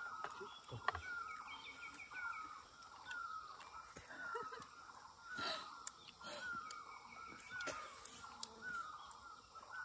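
Birds calling: short downward-sliding calls repeated about every three-quarters of a second, with two quick runs of higher, faster notes. A few sharp clicks cut in, the loudest about halfway through.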